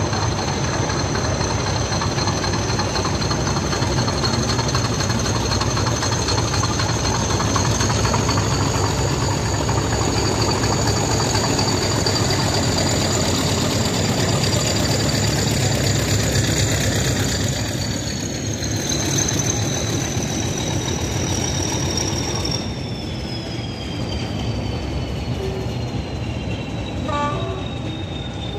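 English Electric Class 40 diesel locomotive 40012 'Aureol' running past on a train of coaches: its engine's rumble with the class's high turbocharger whistle on top, a steady whine that rises a little, then falls in pitch over the second half as the loco moves away.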